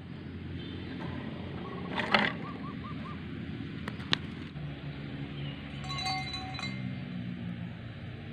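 Handling noise in dry grass stems: a brief loud rustle about two seconds in and a sharp click about two seconds later, over a steady low hum, with a few short high chiming tones.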